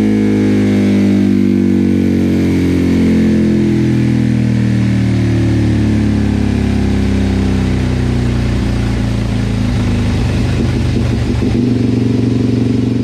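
Suzuki DRZ400SM single-cylinder four-stroke, fitted with an FCR41 carburettor and an aftermarket exhaust, running loud under load on a chassis dyno. In the last few seconds the note turns rougher and pulsing.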